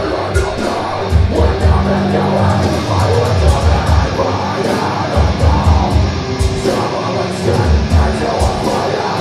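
Deathcore band playing live: heavily distorted guitars and bass over rapid kick-drum runs and crashing cymbals, loud and continuous.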